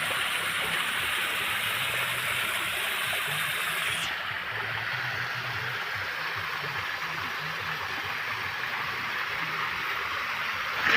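Small stream of water running out of a trench and over a flat drainage surface: a steady soft rush. About four seconds in, its highest hiss drops away and the rush sounds slightly duller.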